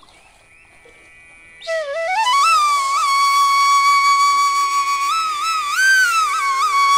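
Background flute music: a single flute melody comes in about one and a half seconds in, slides upward, then holds a long ornamented note.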